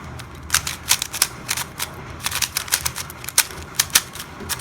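Yuxin Kylin V2 M magnetic 3x3 speedcube being turned quickly: rapid, irregular clicks and clacks of the layers snapping into place. The cube is new and tight, with a sandy turning feel.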